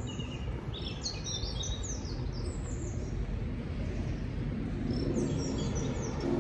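Small birds chirping in quick, high calls, in a cluster about a second in and again near the end, over a steady low outdoor rumble.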